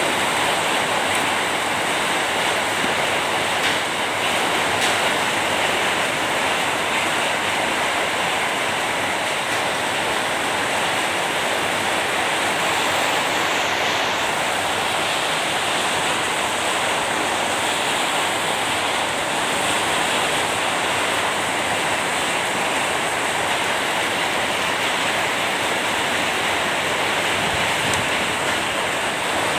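Steady rain falling: an even, unbroken hiss with no pauses or separate drops standing out.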